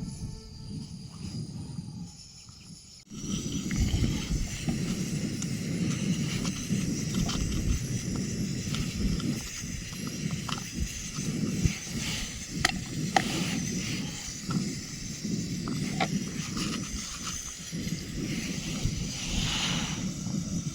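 Outdoor ambience on a mountain trail: an uneven low rumble of wind on the microphone, with a few sharp clicks in the middle. It starts abruptly about three seconds in, after a quieter tail of background music.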